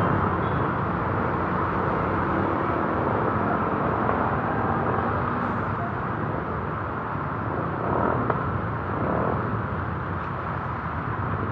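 Steady street noise of vehicle engines running on a flooded road, swelling slightly about eight seconds in.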